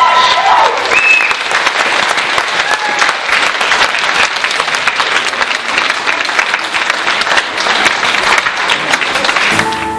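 Audience applauding, a dense steady clapping that cuts off suddenly near the end. A held note of the dance music fades out in the first half second.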